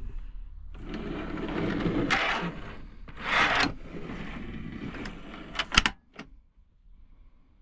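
Hinged wooden worktop being swung up on folding metal brackets: rubbing and handling noise with two louder swells, then a couple of sharp clicks about six seconds in as the brackets lock into place.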